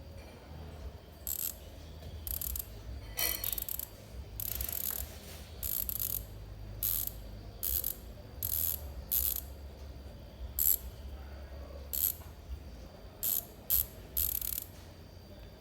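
Raze Pro bicycle hub's freehub ratchet buzzing, its pawls clicking rapidly in about fifteen short bursts of uneven length.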